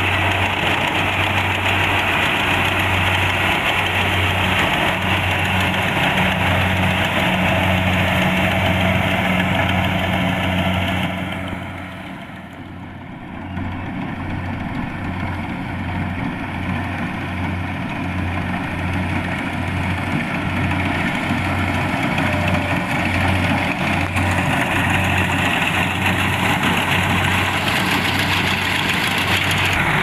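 Kubota DC-70 Plus rice combine harvester running steadily: diesel engine and machinery, with a low throb repeating about once a second. About twelve seconds in it falls quieter for a couple of seconds, then builds back up.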